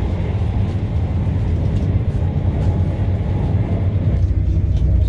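Passenger train running at speed, heard from inside the carriage: a steady low rumble of wheels on rail with a few faint clicks. The rumble deepens a little about four seconds in.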